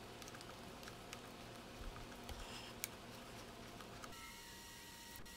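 Near silence: faint background hiss with a few light clicks. About four seconds in, a faint steady electronic tone joins it.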